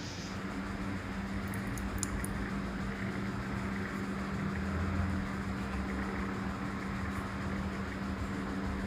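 A steady machine hum over a low hiss, with a few light clicks about two seconds in.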